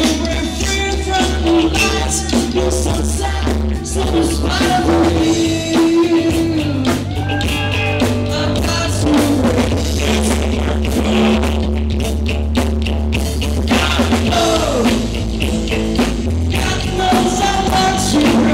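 Live rock band playing, with a singer's voice over bass, guitar and drums.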